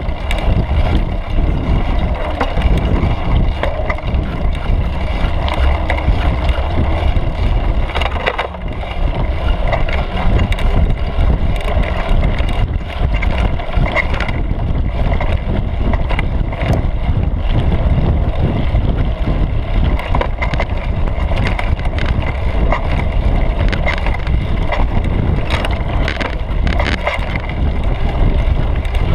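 Mountain bike ridden over a dirt singletrack, heard from a camera on the seat post: a steady low rumble of wind on the microphone and tyres on the trail, with frequent clicks and rattles from the bike.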